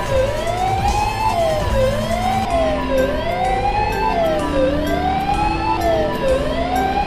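Emergency-vehicle siren wailing, its pitch dipping and rising again about every one and a half seconds, over background music.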